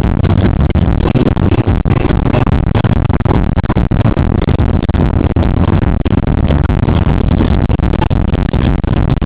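Car cabin while driving: loud, distorted road and engine noise mixed with electronic music, picked up by the dashcam's own microphone.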